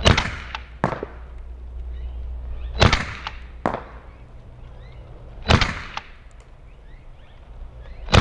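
We-Tech IREX Hi-Capa gas blowback gel blaster pistol firing single shots, each a sharp crack, about every two and a half to three seconds: four shots in all, the last right at the end. Two of the shots are followed by a fainter sharp click less than a second later.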